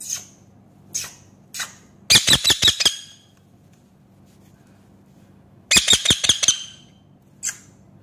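Rose-ringed (Indian ringneck) parakeet squawking: short shrill single calls, then a rapid run of about six harsh screeches about two seconds in and another just before six seconds, with a pause of a couple of seconds between the runs.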